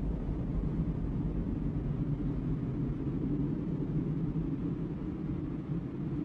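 Steady low rumble with no clear pitch or rhythm.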